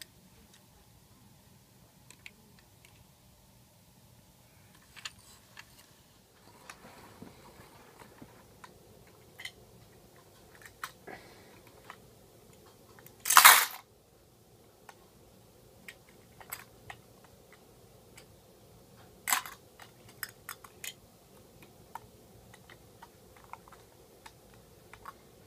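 Scattered small clicks and taps of a metal diecast toy front-loader garbage truck being handled, its front forks and a plastic toy dumpster moved by hand. A louder rustling burst lasting about half a second comes about halfway through, and a smaller one a few seconds later.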